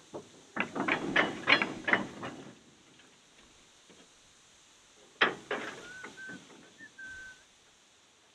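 Loose-coupled goods wagons clanking as they are shunted: a quick run of metallic clanks from the buffers and coupling chains, then about five seconds in a single loud bang followed by a few more clanks and a brief high squeal.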